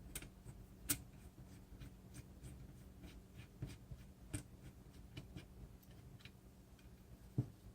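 Faint, irregular clicks and scrapes of a tool working the left crank arm bolt of a bicycle crankset, with a few sharper metal clicks about a second in, around four and a half seconds in and near the end.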